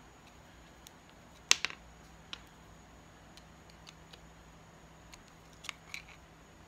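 Screwdriver clicking against the screws and metal bracket on a sewing machine motor as the screws are backed out: a few sharp separate clicks, the loudest about one and a half seconds in and a pair near the end.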